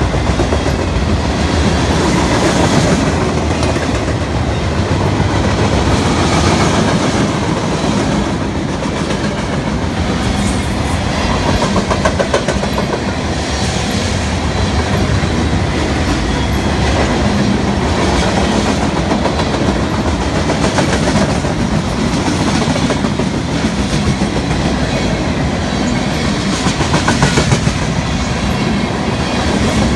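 Mixed freight train cars (centerbeam lumber flatcars, boxcars and refrigerator cars) rolling past: a steady, loud rumble of steel wheels on rail with repeated clicks as wheels cross rail joints.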